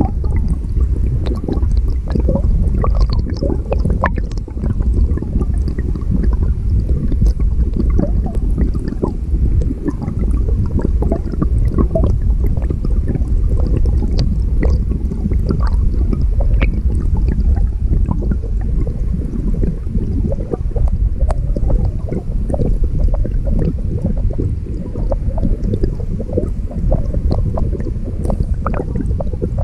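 Stream current heard underwater: a steady, mostly low rumble of rushing water with gurgling and many scattered small clicks and ticks.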